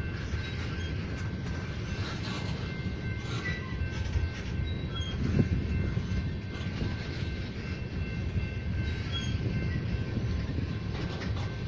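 Loaded tank cars of a freight oil train rolling past: a steady low rumble of steel wheels on the rails, with occasional sharp clicks and faint thin high tones over it.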